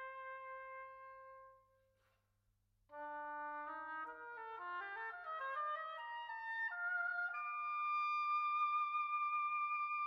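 Wind band music. A held woodwind note fades out, and after a pause of about a second woodwinds enter in overlapping, stepwise rising notes. The line climbs to a long, steady high note.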